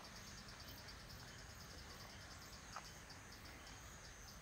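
Faint insect chirping outdoors: a high, evenly pulsing trill repeated several times a second, thinning out in the second half, with one faint click.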